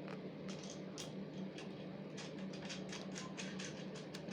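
Light, irregular clicks and ticks of a wrench and metal fittings as two bolts are tightened on a chainsaw milling frame, thickening in the second half, over a steady low hum.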